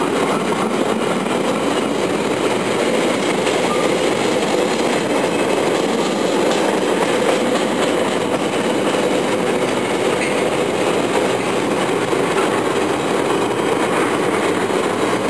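Loaded container wagons of a Freightliner intermodal freight train rolling past at speed: a steady, loud rumble and rattle of wheels on rail.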